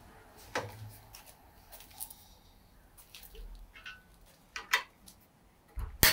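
A few scattered clicks and knocks from hand tools being picked up and a T-handle driver being fitted to a screw on a cast iron jointer table. The loudest knock comes at the very end.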